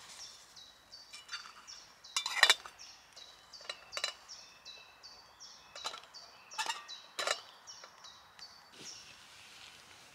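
Several sharp metallic clinks as a titanium cooking pot's lid and folding handles are handled on an alcohol stove, the loudest about two and a half seconds in. A bird repeats a short high call over and over behind them.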